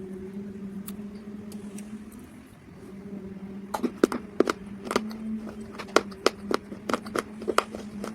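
Dry mud crunching and cracking in sharp, irregular snaps, starting about four seconds in and coming two or three times a second, over a steady low hum.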